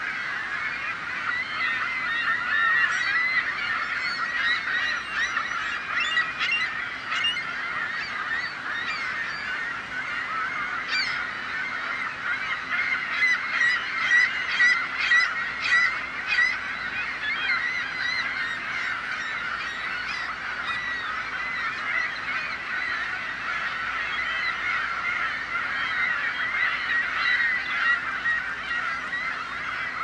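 A flock of gulls calling continuously, many overlapping cries at once, with a louder run of sharp calls about halfway through.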